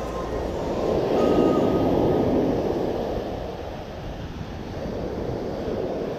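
Ocean surf breaking and washing up the beach, swelling about a second in and easing off past the middle before building again.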